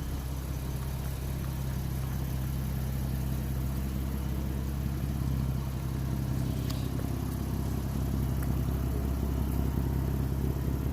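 Car engine running steadily at idle, a low even hum.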